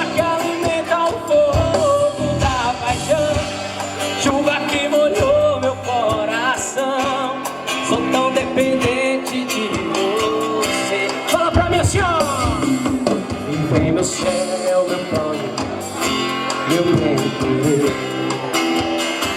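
Live band playing a song, with guitar and a melodic lead line that sounds sung.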